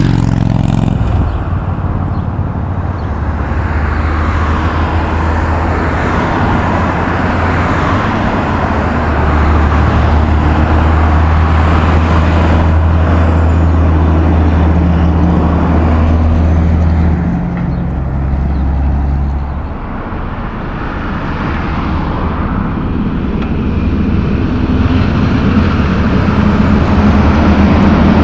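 Loaded logging trucks passing on a paved road: a deep diesel engine drone with tyre and road noise. It swells to its loudest as the first truck goes by in the middle, eases off, then builds again as a second truck comes up near the end.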